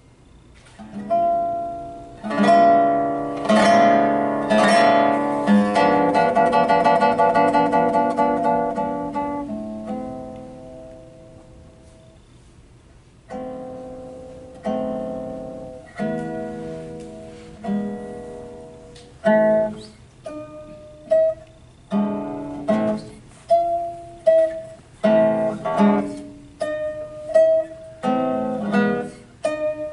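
Solo Panormo-model guitar built by George Thomas, played fingerstyle. It opens with a loud passage of full chords and fast notes that dies away, then moves to separate plucked chords about once a second, returning again and again to the same high note.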